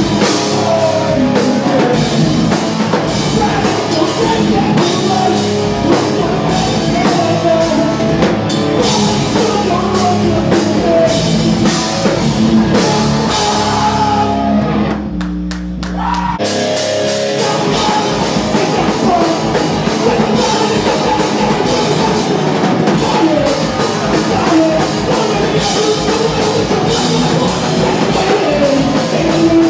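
A live rock band plays loud through amplifiers: distorted electric guitars, bass and drum kit, with vocals. About halfway through, the drums stop for a second or two while a chord is left ringing, then the whole band crashes back in.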